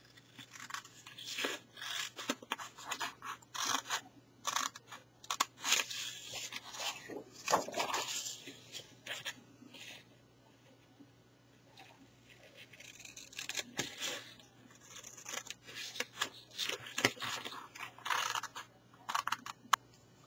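Small scissors snipping into 12x12 cardstock along its score lines to cut the box's interior flaps. Two runs of short crisp cuts, with a lull of a couple of seconds about halfway through.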